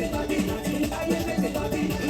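Soca music with a steady dance beat, bass and synth lines, between sung lines.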